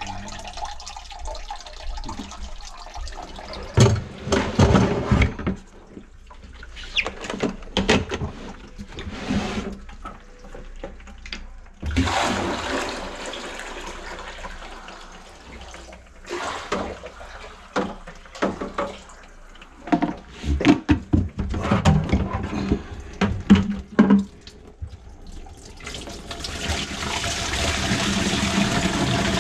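Water pouring and splashing, broken by knocks and clatter as a plastic bucket is handled under an open sink drain. Near the end a steadier rush of running water sets in.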